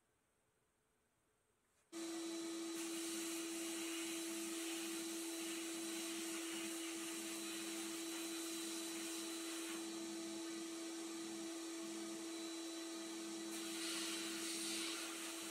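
Paint spray gun hissing as paint is sprayed onto a small toy fire hydrant, over a steady machine hum. The sound starts suddenly about two seconds in, and the spray hiss swells in two stretches as the trigger is worked.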